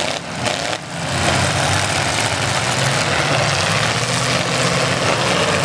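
Several demolition derby cars' engines running together in a loud, steady mass of engine noise, dipping briefly twice in the first second.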